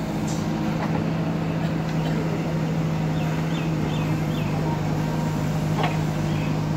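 JCB backhoe loader's diesel engine running steadily at a constant pitch, with four short high squeaks about halfway through.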